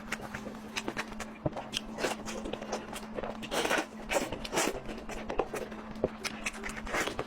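Close-miked eating: irregular wet mouth smacks and chewing clicks, over a steady low hum.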